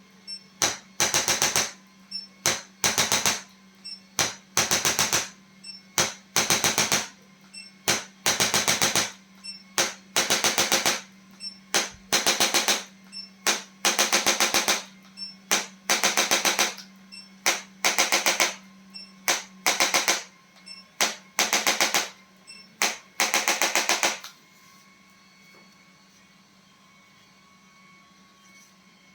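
Bursts of very fast mechanical tapping from an electric percussion device, plausibly a chiropractic adjusting or massage instrument, each burst under a second long and coming about once a second. The bursts stop about 24 seconds in, leaving a steady low hum.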